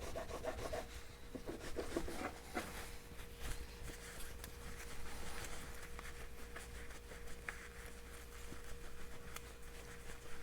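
Carburetor throttle valve being polished by hand: faint, irregular rubbing and light scratching strokes, busier in the first few seconds, over a faint steady hum.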